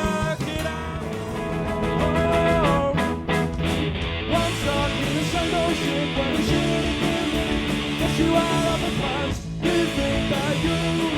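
A band playing rock music with guitar prominent; the sound briefly drops out about nine and a half seconds in.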